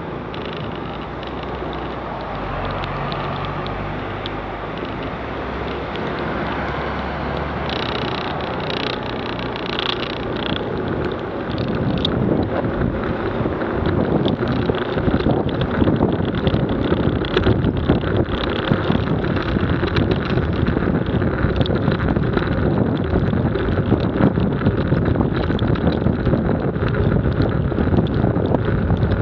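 Vehicle riding on a wet road with wind buffeting the microphone. For the first ten seconds or so it is quieter, with a steady low engine hum. About twelve seconds in it grows louder into steady wind and road noise as the vehicle moves at speed.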